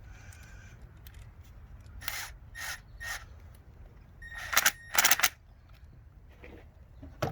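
Metal hand tool tightening a hose clamp on a rubber vacuum hose: a few short scraping strokes, then two louder rasping bursts about halfway through.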